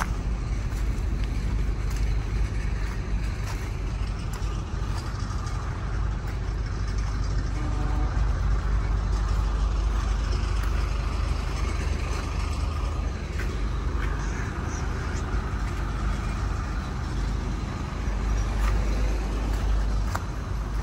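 Steady low rumble of road vehicle noise, with a few faint clicks.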